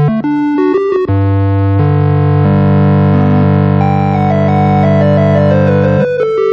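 Background music on synthesizer or keyboard: a few quick notes, then long held chords from about a second in, with a short descending run of notes before quick notes return near the end.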